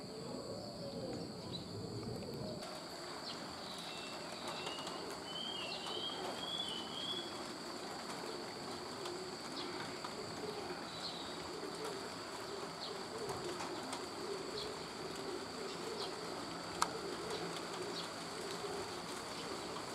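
A dove cooing low and repeatedly in the background. A run of short, high chirps from a small bird comes about three to seven seconds in.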